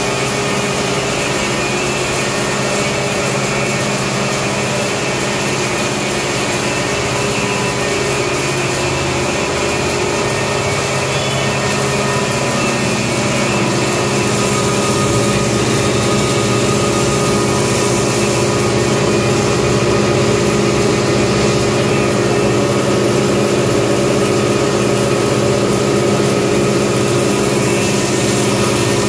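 Heavy-duty 10 hp pulverizer machine with cyclone attachment running steadily, a constant mechanical hum and whine over a dense rushing noise. It gets a little louder about halfway through.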